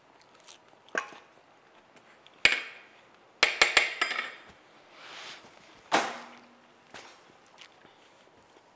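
Metal utensils clinking and knocking against a stainless steel mixing bowl of salad: single clinks, a quick run of clinks about three and a half seconds in, and a louder knock with a short ring about six seconds in.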